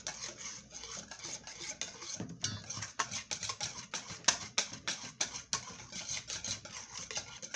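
Wire whisk beating a creamy coleslaw dressing in a stainless steel mixing bowl, its wires clicking against the metal sides in a quick rhythm of about four strokes a second that grows more distinct about two seconds in.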